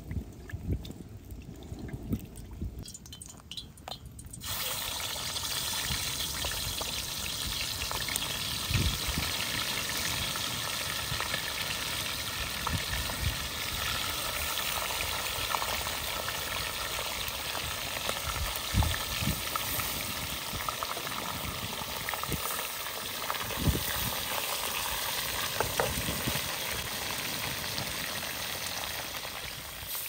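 Chicken pieces frying in hot oil in a metal cauldron over a wood fire: a steady, loud sizzle that sets in abruptly about four seconds in, with a few knocks. Before that, oil dribbling from a ladle into the pan.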